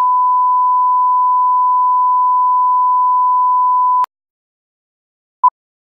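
Steady 1 kHz reference test tone of a colour-bars-and-tone leader, cutting off abruptly about four seconds in. About a second and a half later comes a single short beep at the same pitch, the sync beep of the film-style countdown leader.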